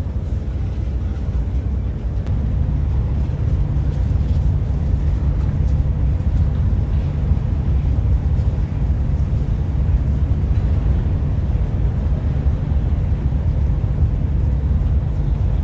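Steady low rumble of the Whoosh KCIC400AF high-speed train running at speed, heard inside the passenger cabin; it grows slightly louder about two seconds in.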